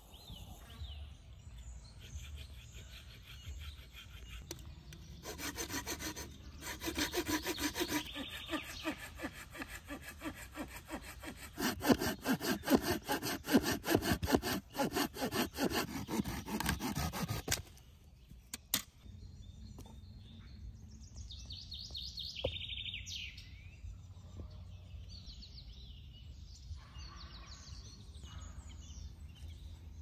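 Hand saw cutting through a dry, weathered log in rapid back-and-forth strokes, growing louder as it bites deeper, then stopping a little past halfway.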